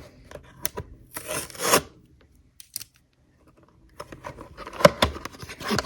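Toy packaging being opened by hand: a rasping tear about a second in, a pause, then clicks and rustling of the package near the end.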